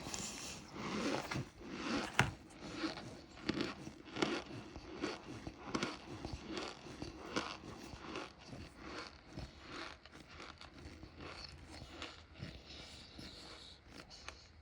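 Cornstarch being crunched and chewed close to the microphone, in a run of irregular crunches about one to two a second, louder in the first half.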